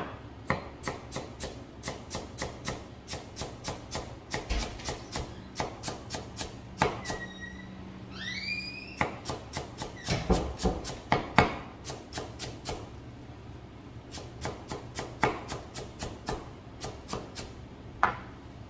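Chef's knife chopping fresh dill on a plastic cutting board: quick, rhythmic taps of the blade against the board, about three a second, with a few short pauses.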